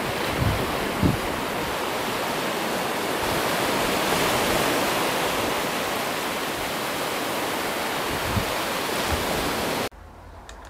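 Ocean surf washing onto a sandy beach, a steady rushing noise. It cuts off suddenly near the end, leaving quiet room tone.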